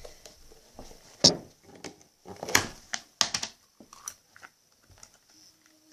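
A few sharp clicks and knocks with quieter handling between, typical of a Super Brain Putty tin being opened and the putty taken out.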